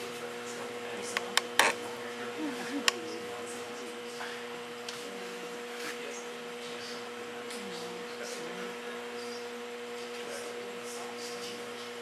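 Steady electrical hum in a room, with a few sharp knocks or taps, the loudest about a second and a half in.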